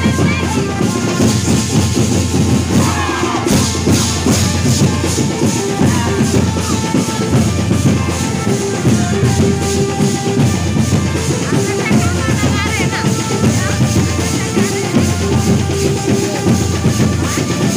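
Nagpuri band music played loud for dancing: a driving drum beat under a held-note keyboard melody.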